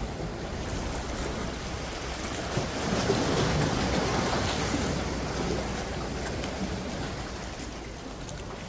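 Wind blowing on the microphone over small waves lapping against shoreline rocks, a steady rushing with a low rumble that swells for a couple of seconds in the middle.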